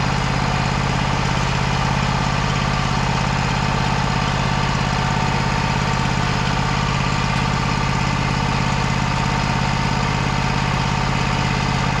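Diesel engine of a Wood-Mizer LT35 HD bandsaw sawmill idling steadily.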